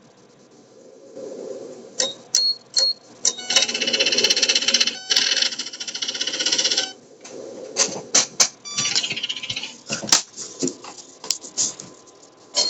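Police radio scanner static: crackling squelch bursts and sharp clicks with a few short high beeps, and a longer burst of hiss from about three and a half to seven seconds in.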